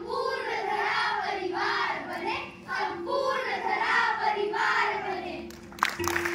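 A group of children singing together. Audience applause breaks out suddenly near the end.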